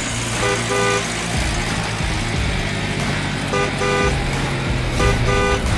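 Vehicle horn tooting in quick pairs, twice-note toots repeated three times, over a steady low engine rumble.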